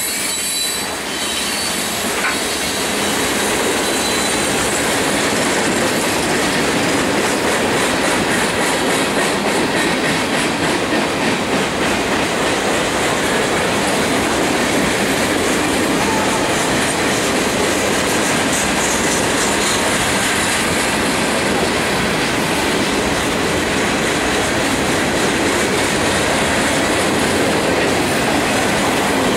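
Cars of a Union Pacific mixed freight train rolling steadily past at speed: steel wheels running on the rail in a continuous rumble and rattle, with wheel clicks over the track.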